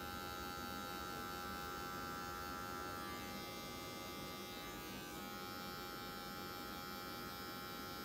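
Electric hair clippers buzzing steadily as they are worked over the side of the head, blending a low fade with the half guard. Their tone shifts slightly about three and again five seconds in.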